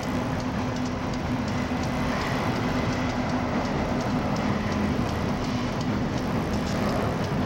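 CSX diesel freight locomotives passing over a steel girder railway bridge: a steady engine drone under a continuous rushing noise.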